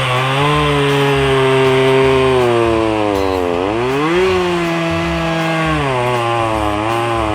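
Chainsaw engine running hard, its pitch sagging about halfway through as the chain takes load in the wood, then climbing back and dropping again near the end.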